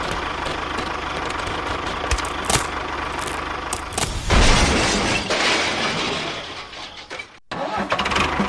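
A small motor of a DIY model tractor or bulldozer running steadily with a few clicks. About four seconds in, a loud, harsh clattering rush starts and lasts two to three seconds, then fades and breaks off briefly near the end.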